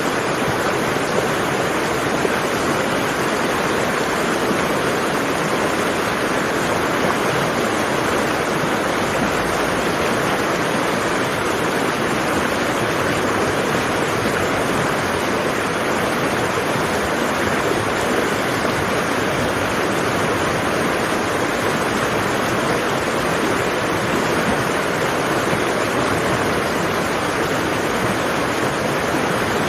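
Waterfall: falling water rushing in a steady, unbroken roar.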